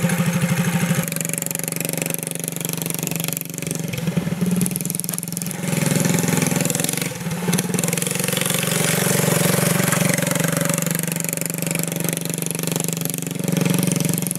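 Riding lawn mower engine running, its speed and loudness rising and falling several times.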